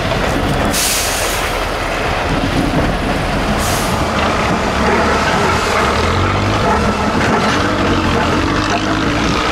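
Diesel engine of an 8x8 off-road trial truck running under load as it crawls over rough, rocky ground, with two short sharp hisses in the first four seconds.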